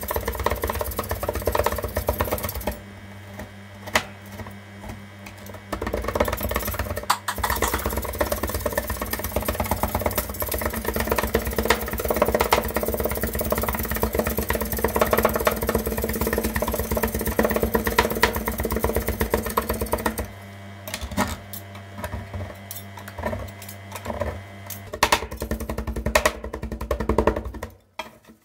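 Metal spatulas repeatedly chopping and scraping on the steel cold plate of a rolled ice cream machine, a quick run of clicks and knocks as chocolate-wafer pieces are cut into the freezing ice-cream base. A machine hum underneath cuts out about three seconds in, returns about three seconds later, then stops and starts again near the end.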